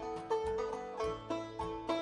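Bluegrass background music led by a plucked banjo over a steady beat.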